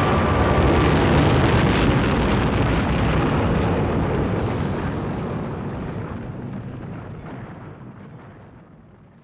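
A heavy rumbling roar of noise like a volcanic eruption, loudest at the start, where the choral music breaks off. It fades away steadily over about nine seconds until it is nearly gone.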